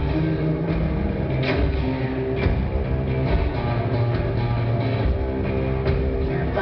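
Live rock music: electric guitar notes ringing over drum hits, heard from the audience.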